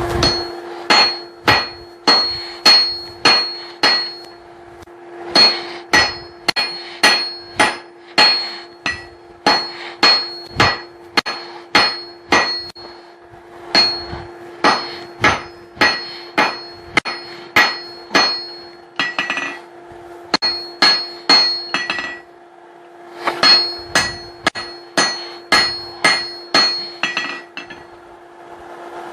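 Hand hammer striking hot steel on an anvil in runs of quick blows, about two to three a second, each blow ringing metallically, with short pauses between runs. This is the hammer-head steel being drawn out into a punch. A steady low hum runs underneath.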